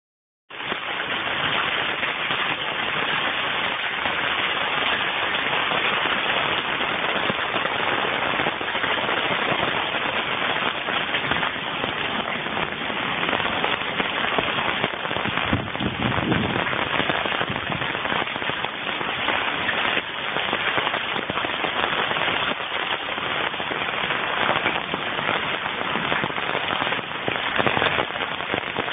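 Hail and heavy rain falling on pavement, lawn and nearby surfaces: a loud, steady hiss of rain dense with the small crackling impacts of hailstones.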